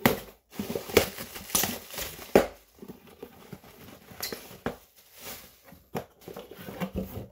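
Packaging being handled during an unboxing: crinkling and rustling with scattered light knocks and taps.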